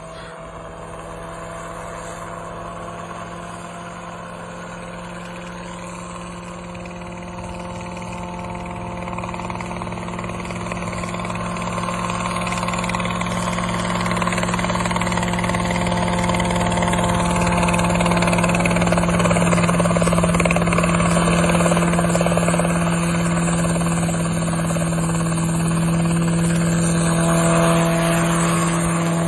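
Engine and rotor of a small open-frame single-seat helicopter running steadily in low flight. The drone holds one pitch and grows much louder over the first twenty seconds or so as the machine comes close, then stays loud.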